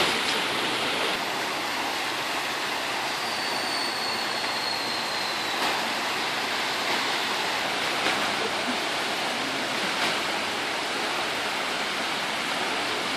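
Flood-swollen river rushing fast through its concrete channel and spilling over the bank after heavy rain: a steady, even roar of turbulent water.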